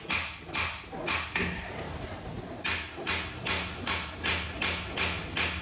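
Hammer tapping a steel punch held against brass sheet on a metal stake, each blow a sharp ringing metallic strike. The strikes come at about three a second, with a pause of about a second after the first few.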